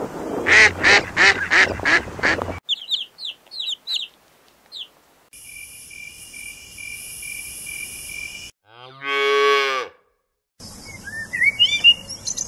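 Canada geese honking, a quick run of about six calls, followed by a few short high chirps. Then comes a steady hiss from a horned viper and, about nine seconds in, a single drawn-out call. A small songbird chirps near the end.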